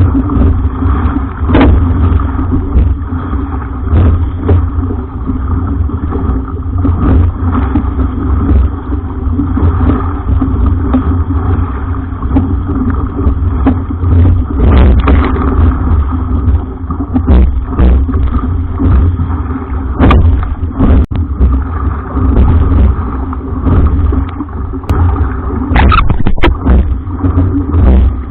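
Strong wind buffeting the microphone on a sailing jangada raft: a loud, uneven, gusting rumble, with scattered short knocks and splashes.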